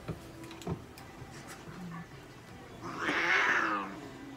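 Japanese domestic cat letting out one harsh, growling hiss of about a second, about three seconds in, the sound of a displeased cat held down for claw trimming. A couple of light taps are heard near the start.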